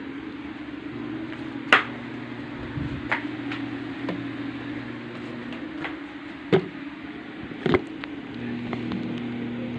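A steady mechanical hum, like a small motor running, with a few sharp knocks scattered through. Near the end the hum changes its tone and grows slightly louder.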